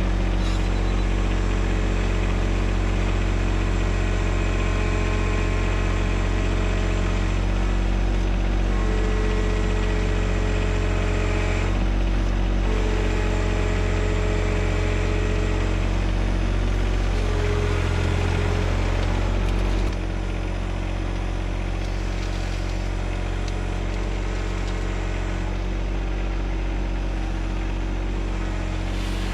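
John Deere 1025R subcompact tractor's diesel engine running steadily. A higher steady tone comes and goes three times in the middle, and the engine sound drops a little in level about two-thirds of the way through.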